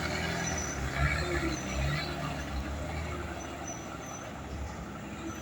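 Old diesel truck engine pulling hard at full throttle on an uphill climb: a low, steady rumble that slowly fades.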